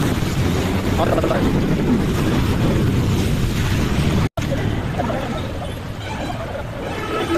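Rushing floodwater and wind noise on the microphone, a loud, steady rumble.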